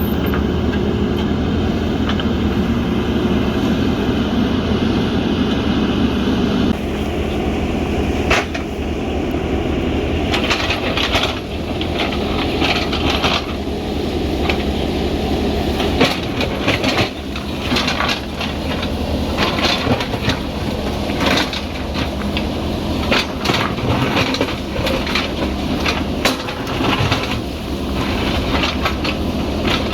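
JCB backhoe loader's diesel engine running steadily, its note shifting about seven seconds in. From about ten seconds on come frequent sharp clanks and knocks as the machine works the ground.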